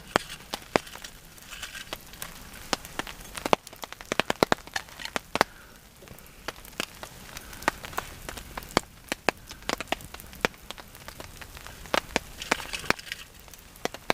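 Light rain falling on a tarp overhead: irregular sharp ticks of single drops, several a second, over a faint hiss.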